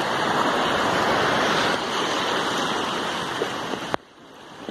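Loud, close wash of shallow beach surf foaming in around the waders, dropping suddenly to a softer hiss about four seconds in.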